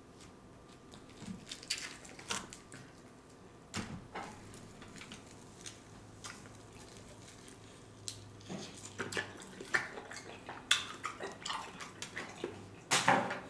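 Eating sounds of a sauce-coated fried chicken wing: scattered crunchy bites, wet chewing and lip smacks, sparse at first and busier in the second half.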